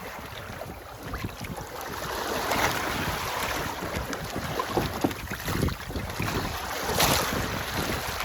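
Wind buffeting the microphone over water rushing along a sailboat's hull, with two louder surges of rushing noise, about two and a half and seven seconds in.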